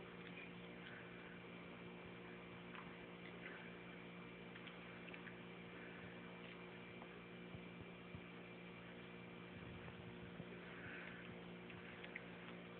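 Very quiet room tone: a steady low hum with faint, scattered ticks.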